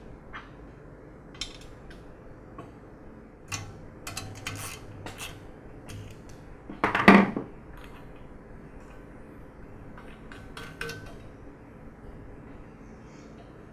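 Scattered metallic clicks and clinks of tools and metal parts as the regulator manifold assembly is fastened back into an air compressor's steel frame, with one louder knock about seven seconds in.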